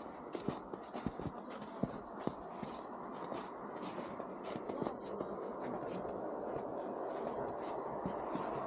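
Boots crunching through snow in steady walking footsteps, each step a cluster of sharp crackles, over a steady rushing noise that grows a little louder in the second half.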